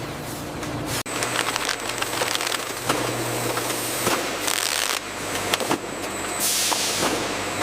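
Steady machinery noise with a low hum and scattered clicks and clatter, broken by a brief dropout about a second in.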